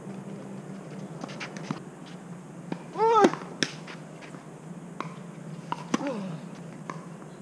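Tennis rackets striking the ball, with ball bounces on clay, as a few sharp pops. About three seconds in there is a loud, short call that rises and falls in pitch, and around six seconds a shorter call that falls.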